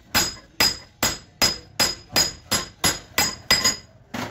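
Hammer striking a steel sleeve driver, driving a cylinder sleeve down into a four-cylinder Cummins engine block. There are about a dozen even, metallic blows, roughly two and a half a second, each with a brief ring. The last one, near the end, is lighter.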